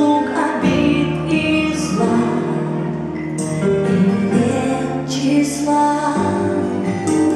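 Music with a female voice singing a slow, gentle song.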